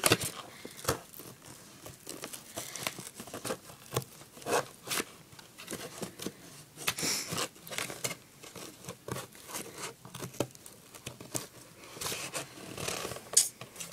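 Scissors cutting and tearing a hole into a cardboard box: irregular snips, crinkles and tearing scrapes of cardboard.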